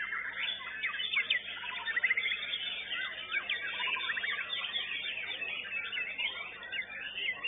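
Several white-rumped shamas (murai batu) singing at once: a dense, overlapping tangle of rapid whistles, chirps and sweeping trills with no break.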